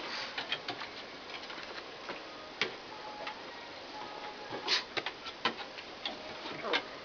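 Dog and cat play-fighting: irregular light taps and scuffles of paws and claws on a hard floor, with a busier cluster about two-thirds of the way in.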